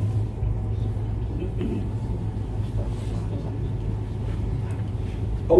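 Steady low hum and rumble of room noise picked up through a mosque's microphone and sound system, with no voice.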